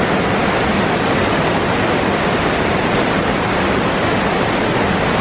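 Waterfall pouring down themed rockwork: a steady, even rush of falling water.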